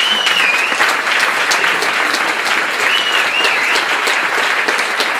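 Theatre audience clapping steadily, with two short high whistles from the crowd, one at the start and one about three seconds in.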